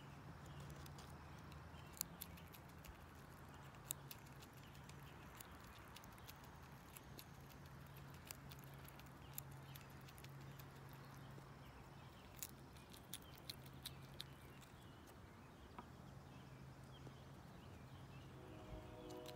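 Faint close-up sounds of an eastern gray squirrel eating walnut and pecan pieces: scattered sharp clicks and crunches of nibbling and handling the nuts, over a low steady hum.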